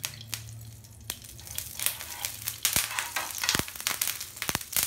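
Ghee melting in a hot non-stick pan, sizzling and crackling, with the crackle growing busier about two seconds in.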